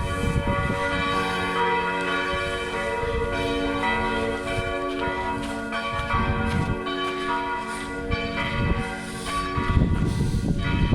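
Church bells in full peal, several bells striking over one another so that their tones overlap and ring on.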